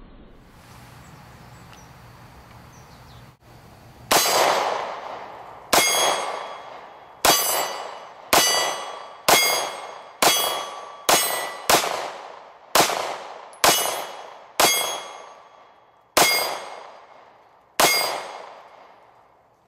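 Beretta Px4 Storm Sub-Compact 9mm pistol firing thirteen shots at steel targets, roughly one a second with uneven gaps, starting about four seconds in. Each hit is followed by the steel plate ringing, which fades over about a second.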